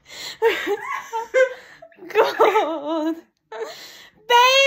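A girl laughing and giggling in a couple of bursts, then breaking into a long held sung note near the end.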